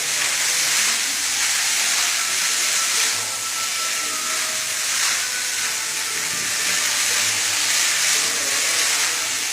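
Water fountain spraying and splashing: a steady hiss of water.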